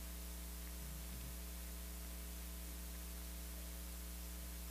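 Steady electrical mains hum with a constant hiss underneath.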